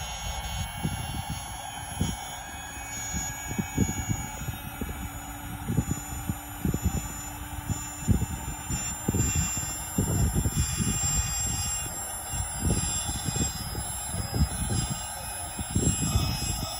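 Battery-powered electric air pump running steadily with a buzzing hum as it inflates an inflatable kayak chamber through its valve. Irregular low rumbles and thumps run over it.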